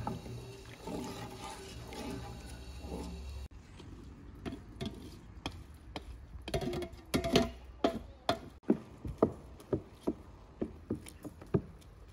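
A wooden spoon stirs and swishes pomegranate juice in a large aluminium pot. Then comes a run of irregular sharp knocks and clicks as a metal colander full of pomegranate seeds is handled and the seeds are stirred.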